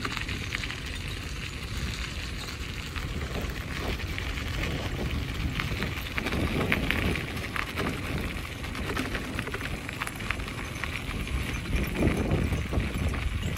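Wind rumbling on the microphone, steady, with scattered faint clicks and rustles.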